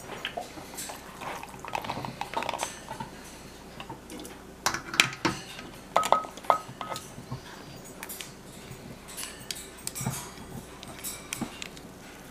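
A utensil knocking and clinking against a glass canning jar and its plastic funnel as cooked kidney beans and their liquid are spooned in, with a few sharp ringing clinks about five and six seconds in.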